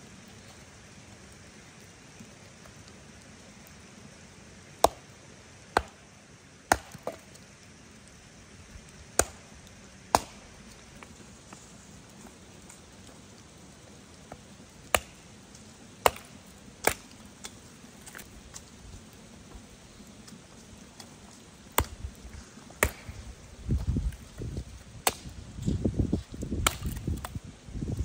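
Firewood being chopped with a hatchet or axe: about a dozen sharp, separate strikes, often in pairs about a second apart. A low rumbling of handling noise comes in over the last few seconds.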